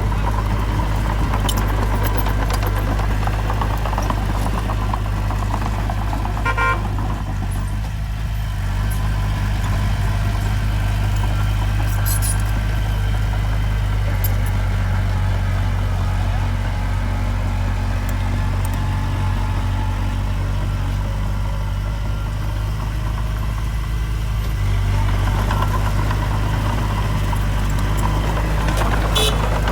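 Diesel engine of heavy earthmoving machinery (bulldozer or dump truck) running steadily, with a short clank about seven seconds in and another near the end.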